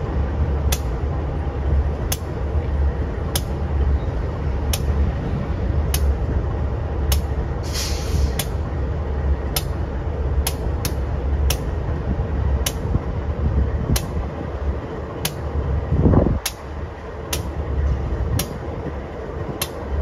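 Freight train rolling past with a heavy, steady low rumble and sharp clicks about once a second from the wheels crossing rail joints. There is a brief hiss about eight seconds in and a louder low thump a few seconds before the end.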